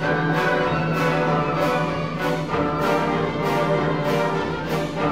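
Orchestral background music with a steady beat.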